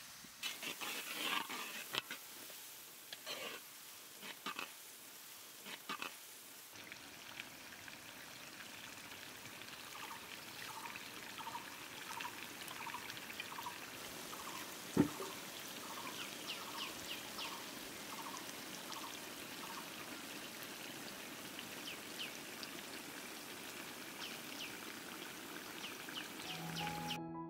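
A thick shrimp curry cooking in a wok. For the first few seconds a spatula scrapes and clicks against the wok. After that the sauce bubbles steadily, with small pops every half second or so and one sharp click about halfway through.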